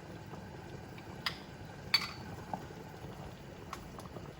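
A metal spoon knocking against a pot twice, about a second and two seconds in, the second with a short ring. Under it, a low steady bubbling from the thickened goulash simmering on high heat.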